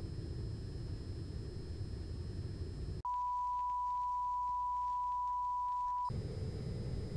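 Low, noisy security-camera ambience with a faint high electrical whine, cut off about three seconds in by a steady 1 kHz test tone under colour bars. The tone holds for about three seconds, then stops abruptly and the ambience returns.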